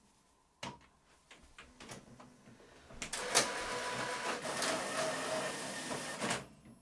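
Epson WorkForce Pro WF-R5690's automatic document feeder taking in a sheet. A click comes about half a second in, then a few light clicks, and from about three seconds in the feed rollers and scanner mechanism run steadily for about three seconds before stopping suddenly.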